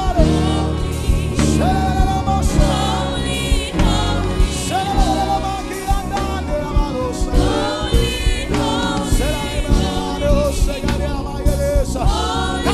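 Gospel worship song: a congregation singing with raised voices over a live band's steady beat and bass.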